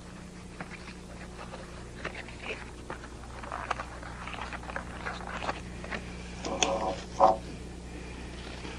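Folded paper great circles being handled and rustled, with small crackles and clicks as they are fitted together with bobby pins, over a steady low hum. Near the end come two short squeaky sounds, the second the loudest.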